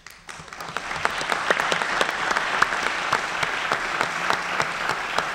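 Audience applauding: many hands clapping, building up over the first second, then holding steady.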